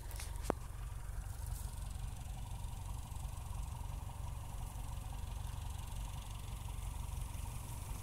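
Wind buffeting the microphone: a steady low rumble, with one sharp click about half a second in.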